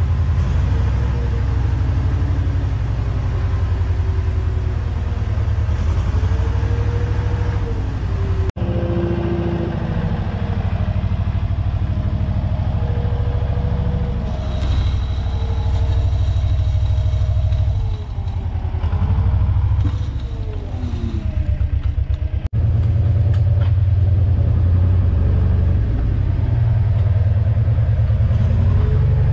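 Farm loader's engine running under load, its pitch rising and falling as the loader works a bale spike into straw bales. The sound breaks off abruptly twice.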